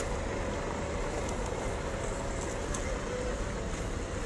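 WPL C24 1/12-scale RC Jeep Wrangler crawling over gravel, its electric motor and gearbox giving a thin whine whose pitch wavers with the throttle. Under it runs a steady rushing noise with a few faint ticks.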